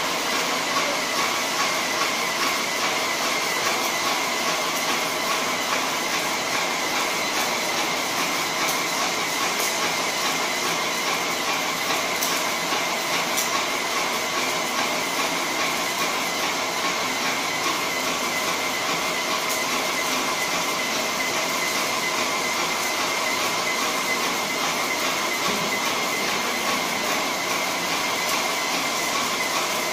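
Graco airless paint sprayer spraying paint onto a wall: a loud, steady hiss with a faint whine running through it, without a break.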